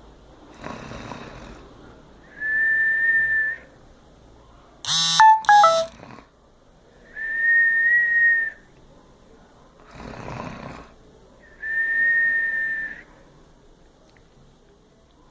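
A sleeping person snoring. Rasping snores alternate with a long, steady, high-pitched whistle, three whistles in all. About five seconds in comes a loud, sharp two-part squeal that drops in pitch.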